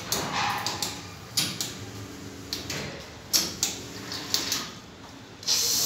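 Clicks and knocks of hands working an espresso machine, then near the end its steam wand is opened and blows a sudden steady hiss.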